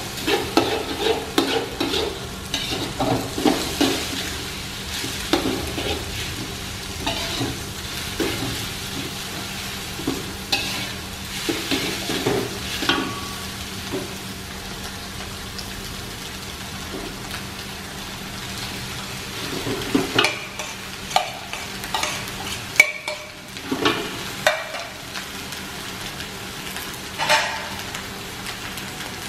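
Metal spatula scraping and stirring shrimp, chicken and egg around a sizzling aluminium wok. The strokes come in quick flurries, thin out to a mostly steady sizzle about halfway through, then pick up again.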